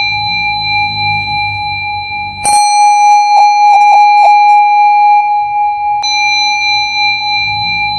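Singing bowl ringing with a long, steady tone, struck again about two and a half seconds in so that it rings brighter and wavers for a moment, then freshly sounded again near six seconds.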